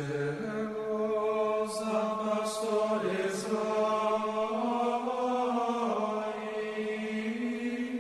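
Music of slow sung chant: voices holding long notes, the pitch changing only now and then.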